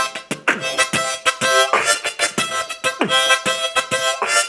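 Harmonica playing held chords over a steady percussive beat.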